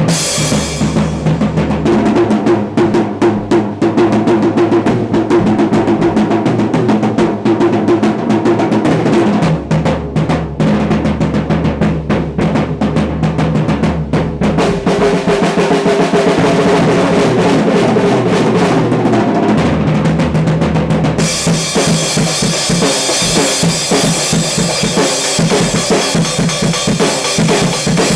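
Acoustic drum kit solo: fast, dense rolls around the snare and toms over bass drum. About 21 seconds in, cymbal wash joins the rolls.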